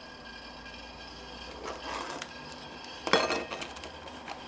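Aluminium foil crinkling and rustling as it is handled and set up as a windscreen around a small alcohol stove, in short bursts, loudest about three seconds in.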